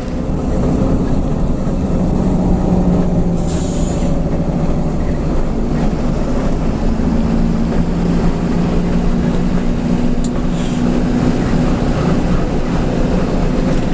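Front-engined intercity bus's diesel engine running steadily under way, heard from inside the cab near the engine. A short hiss comes about three and a half seconds in.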